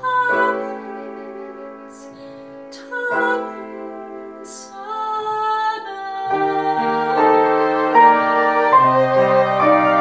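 A slow ballad played on piano and two flutes, with a woman singing, growing louder over the second half.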